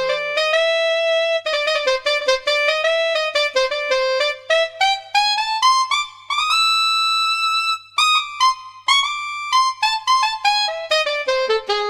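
Solo saxophone playing a quick run of notes that climbs to a high note held for about a second and a half, then runs back down.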